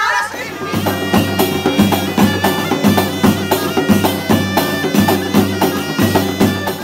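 Moroccan wedding band playing: a ghaita (reed shawm) sounding a steady nasal melody over large jingled frame drums struck in a fast, regular beat.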